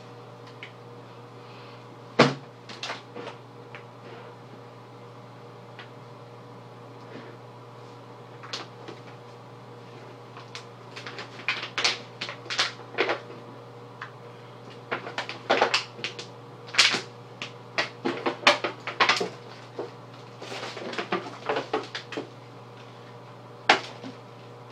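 Shaving-cream pie hitting a face with a sharp splat about two seconds in, then a long run of wet squishing and crackling as hands smear the foam over the head and face, and another splat near the end. A steady low hum underneath.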